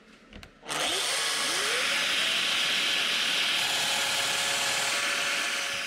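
A few light clicks, then a Festool Domino XL DF700 joiner and its hose-connected dust extractor switch on just under a second in. The joiner's motor spins up with a short rising whine, then both run steadily while the joiner cuts a loose-tenon mortise in a poplar face-frame piece. The noise fades near the end.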